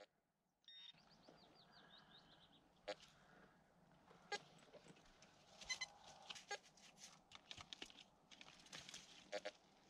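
Faint rustling and scattered light clicks of hands working through soil, leaves and twigs. A faint high trill of quick falling chirps comes about a second in and lasts a couple of seconds.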